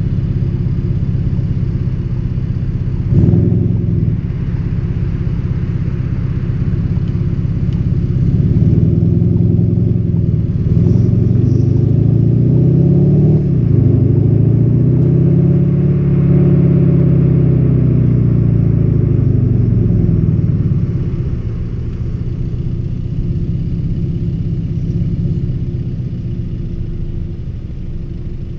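Volkswagen Golf 7 GTD's 2.0-litre turbodiesel four-cylinder, enhanced by its Sport and Sound package, pulling under throttle. The engine note climbs, drops sharply with a gear change about 13 seconds in and climbs again, then falls away as the car eases off around 20 seconds into a steadier drone.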